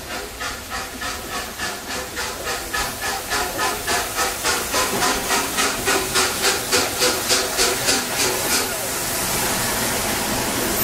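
LMS Princess Coronation Pacific 6233 Duchess of Sutherland pulling away with its train, the exhaust beats from its chimney coming about three a second over a steady steam hiss and growing louder and a little quicker as the locomotive passes close by. Near the end the beats stop and give way to a steady hiss.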